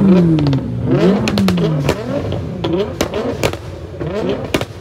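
A car engine revved hard twice, its pitch climbing and falling away, followed by a string of quick short blips of the throttle with sharp pops and crackles from the exhaust.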